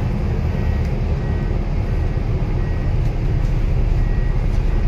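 Scania L94UB city bus running, heard from inside the passenger cabin: a steady low engine drone with road noise and cabin rattle, getting a little louder in the second half.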